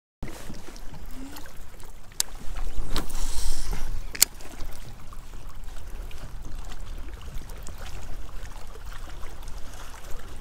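Water lapping against a fishing kayak's hull, with a low rumble that swells for about a second and a half some three seconds in, and a few sharp clicks.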